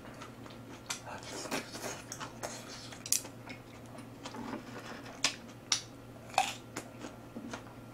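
Chopsticks clicking and tapping against a tabletop griddle and dishes while picking up pieces of grilled beef: a string of light, irregular clicks over a faint steady hum.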